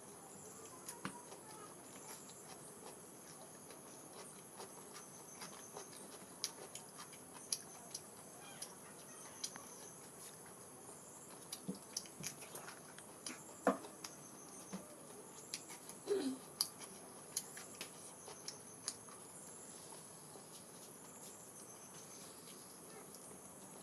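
Close mouth sounds of a person eating luchi and pork: scattered soft clicks, smacks and chewing noises, with a few louder clicks near the middle, over a steady high-pitched background hum.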